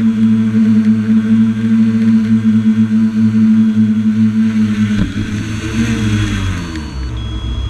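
Drone motors and propellers humming at a steady pitch, then a knock about five seconds in as it touches down on the ground, after which the hum falls in pitch and fades as the motors spin down.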